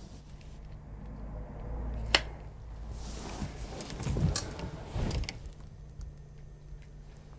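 A sharp click about two seconds in, then the rustle of bedding and a couple of soft thumps as a person flops back onto a bed and settles onto the pillow.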